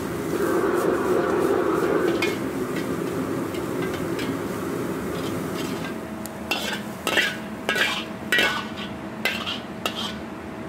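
Metal ladle stirring and scraping minced ingredients around a hot carbon-steel wok, with light frying and a steady background rush. From about six seconds in, a run of sharp metal clinks as the ladle scrapes the wok and knocks against a stainless-steel bowl while the mix is emptied into it.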